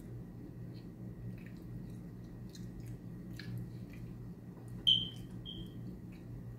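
Quiet wet eating sounds: sauced chicken wings pulled apart by hand and chewed, with faint smacking clicks over a steady low hum. About five seconds in, a short, high electronic beep sounds, then a fainter second one.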